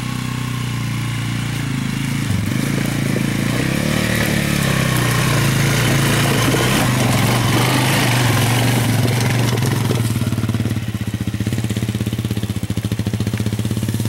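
Suzuki ATV engine running close by, revving up and down a few times in the first seconds, then holding a steadier, pulsing beat near the end.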